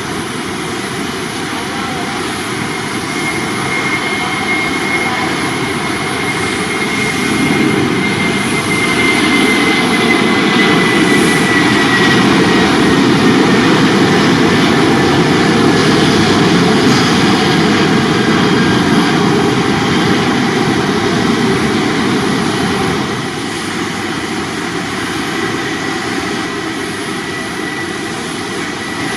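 Jet airliner's engines passing close by: a loud rush that builds, holds for several seconds and then eases off, with a high whine that slowly falls in pitch as the aircraft goes by.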